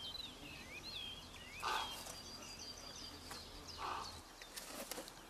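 Faint background birdsong: small birds chirping with short rising and falling whistled notes in the first two seconds, over quiet outdoor ambience, with two soft brief calls about two and four seconds in.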